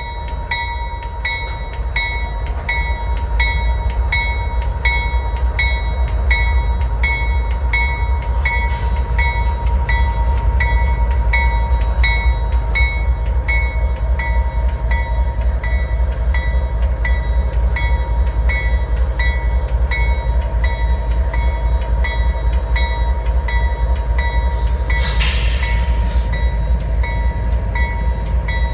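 Freight train pulling out behind GE diesel locomotives, a steady heavy rumble, with a grade-crossing bell ringing about twice a second. A short hiss comes near the end.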